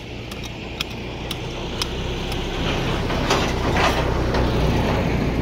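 Scattered sharp clicks and scrapes of hands and a tool working stony soil, over a steady low rumble that grows louder about halfway through.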